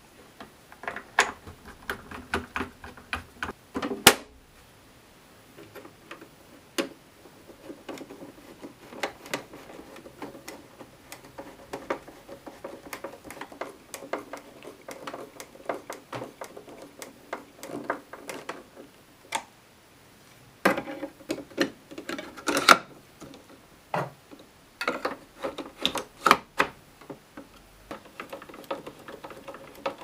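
Irregular sharp clicks and taps of a screwdriver working screws and plastic parts of a Philips espresso machine being taken apart. There is a louder knock about four seconds in, and quick runs of clicking later on.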